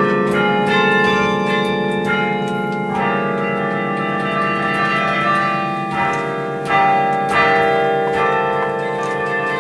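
Carillon bells played from the baton keyboard: a melody of struck bells whose long ringing tones overlap, with fresh strikes standing out in the second half.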